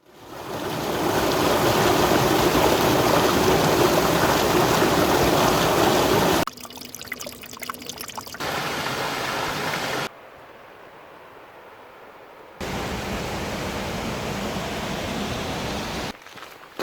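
Rushing water of a mountain stream, steady and loud for about six seconds after fading in, then heard in a series of shorter stretches that cut abruptly from one level to another.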